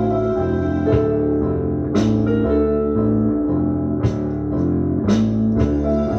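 Looped keyboard music in D minor: held chords over a bass line that steps from note to note, with a sharp percussive hit about once a second.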